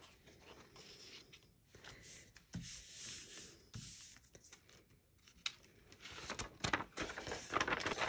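Faint rustling and rubbing of a sheet of printer paper pressed flat by hand onto an ink-wet plastic stencil, then a run of light crackles over the last two seconds as the paper is peeled up off the stencil.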